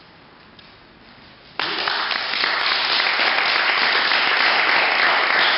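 Audience applauding, starting suddenly about one and a half seconds in and keeping up steadily.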